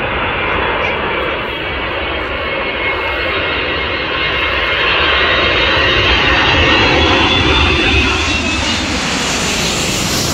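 Antonov An-124's four Progress D-18T turbofans on final approach, growing louder as the aircraft comes low overhead, with a higher whine joining near the end. Gusty wind rumble on the microphone underneath.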